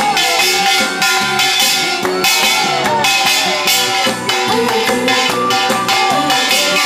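Upbeat trot backing music with a steady beat, a small Korean brass gong (kkwaenggwari) beaten along in bright metallic strikes.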